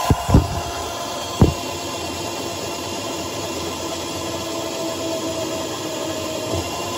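Razor SX500 electric dirt bike's motor and chain drive running at a steady speed with a steady whine, powered at 48 volts on a 36-volt controller, its speed set by a potentiometer. Two or three sharp knocks in the first second and a half.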